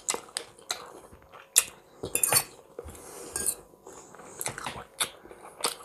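A fork clicking and clinking against a ceramic salad bowl in a scattering of sharp, separate taps, with close-up chewing of cucumber salad.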